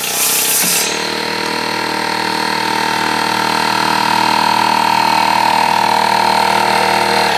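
Portable pancake air compressor running, a steady motor drone with a whine that grows a little stronger as it runs. A short burst of hiss comes in the first second.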